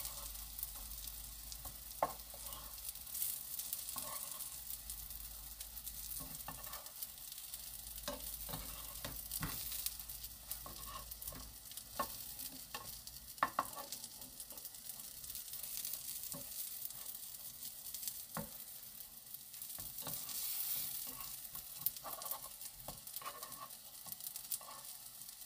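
Shiitake mushroom jeon frying in a pan over very low heat, a gentle steady sizzle with scattered small clicks.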